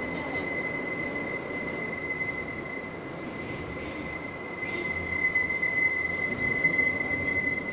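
R143 subway train running, heard from inside the car: its wheels give a steady high-pitched squeal over the rolling rumble. The squeal and the rumble get louder about five seconds in.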